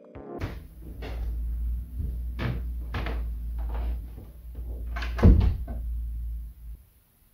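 Cupboard doors opening and closing: a string of sharp knocks and clunks, the loudest about five seconds in, over a low steady hum that stops near the end.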